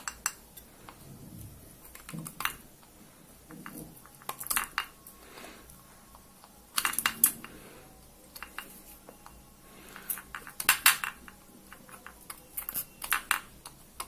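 Sharp metal clicks and scrapes of a soldering iron tip working the pins of an LED bulb's bayonet cap to melt off the solder, coming in short clusters every couple of seconds.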